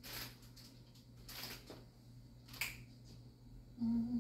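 Plastic produce bags crinkling and rustling as food is handled in an open refrigerator, in a few short bursts with a sharp click about two and a half seconds in. A woman hums briefly near the end.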